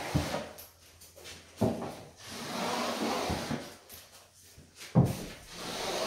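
Tapepro compound applicator tube with a CF-75 corner finisher head knocking into a drywall internal corner and scraping along the joint. There are two sharp knocks, about a second and a half in and near the end, each followed by a second or so of scraping.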